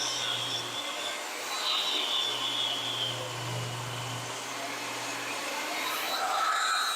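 Electric table saw running steadily, its motor whining with a low hum underneath.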